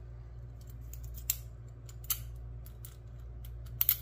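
Scattered sharp metallic clicks and ticks from a Master Lock 101 being handled, the strongest a little over a second in, around two seconds in and a close pair near the end, over a steady low hum.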